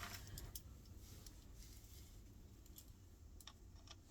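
Faint, scattered small clicks and taps of washing-machine drain-pump parts being handled, over a low steady room hum.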